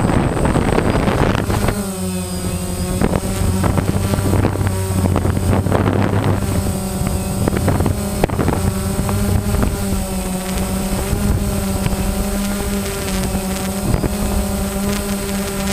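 DJI Phantom quadcopter's electric motors and propellers heard from the drone itself, with wind buffeting the microphone. The motors spin up and step up in pitch about two seconds in as it lifts off, then settle into a steady buzz that wavers slightly as it climbs and hovers.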